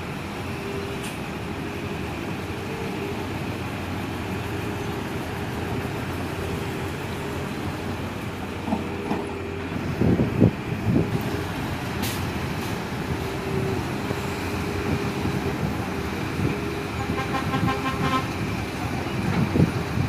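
Heavy diesel excavators running steadily under load, with a few louder rumbles and knocks about ten seconds in and again near the end.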